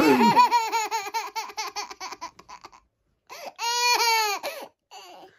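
Toddler girl laughing: a run of quick laughing pulses that tails off over about three seconds, then a second, high laugh held for about a second.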